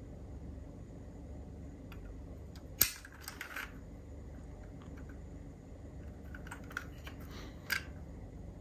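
Small sharp clicks and taps of a diecast model car being handled: one sharp click about three seconds in with a short run of lighter clicks after it, then a few more clicks near the end, one of them sharp, over a faint steady hum.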